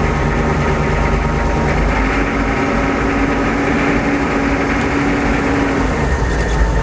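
1998 AM General Hummer's 6.5 L turbo-diesel V8 running at low RPM with a whine whose pitch follows engine speed, shifting about two seconds in and again near the end. The noise has grown louder over recent weeks; the owner thinks it is engine related, since it is not affected by steering.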